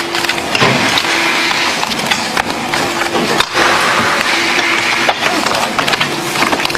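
Rapid clattering and slapping of playing cards being handled and stacked by hand, over dense factory workroom noise with a steady hum that cuts in and out.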